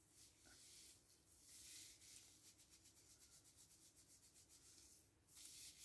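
Faint rubbing and squishing of gloved hands working hair dye through wet hair, with a quick run of short strokes from about halfway through.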